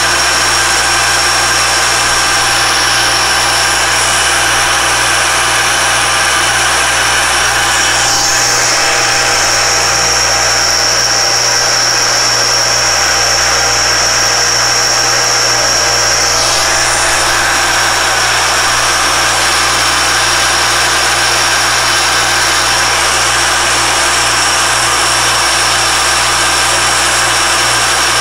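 Alexander Model 3A pantograph engraving machine running, its spindle driving a fine cutter through a German silver (nickel silver) plate. A steady loud machine noise with a high whine, which grows stronger for several seconds in the middle.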